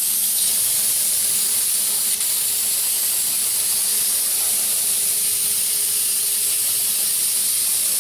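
Pastry spray gun hissing steadily as it sprays a fine mist of melted white chocolate and cocoa butter.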